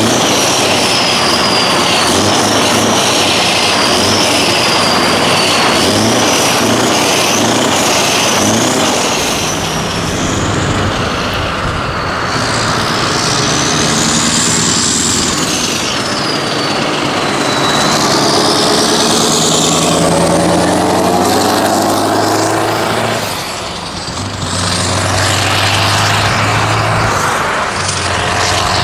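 Scania R500 truck with an open, straight-through exhaust pipe, accelerating away and pulling up through the gears: the engine note climbs and drops back with each shift, with a high whistle rising and falling above it. Near the end it settles into a steadier low drone.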